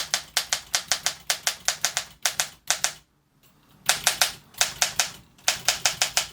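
Olympia Monica manual typewriter being typed on at speed: quick, even clacking of type bars striking, about six keystrokes a second, with a brief pause about three seconds in.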